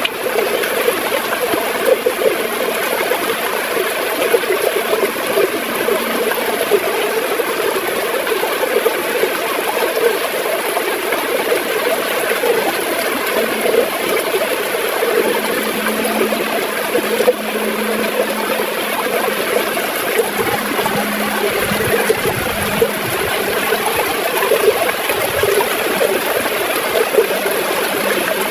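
River water gurgling and splashing steadily over rocks.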